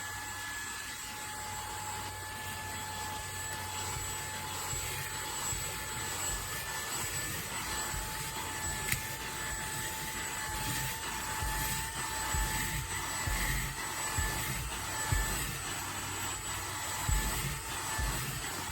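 Handheld cordless car vacuum (Fanttik V8 Apex) running steadily, a high motor whine over airflow hiss, with occasional low bumps from the nozzle or the body being handled.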